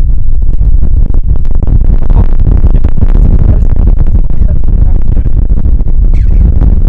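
Heavy wind buffeting the microphone: a loud, continuous low rumble with irregular gusty thumps.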